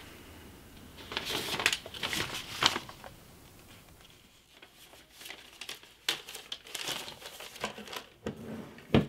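Sheets of paper rustling and crinkling as they are handled, loudest between about one and three seconds in, then softer rustles and a few light taps.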